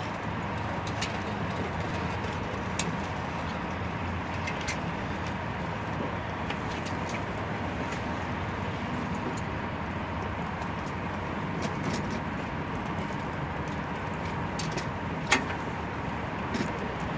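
Sliding gate motor running steadily, driving the gate along its steel toothed rack while the gate's wheels roll on the ground track. It makes an even hum with a thin steady whine, scattered light ticks, and one sharper click near the end.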